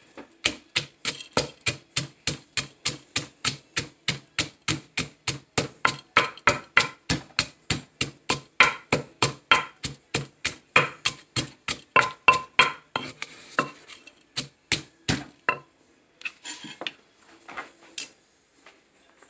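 Wooden pestle pounding in a clay mortar, crushing roasted peanuts with chilies and garlic, in a steady beat of about three strokes a second. The pounding stops about fifteen seconds in, and a few scattered knocks follow.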